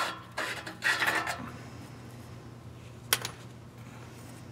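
A 22 mm wrench clinking and scraping against the downstream oxygen sensor as the sensor is worked loose from the exhaust pipe, with a short metallic ring in the first second and a half and one sharp click about three seconds in.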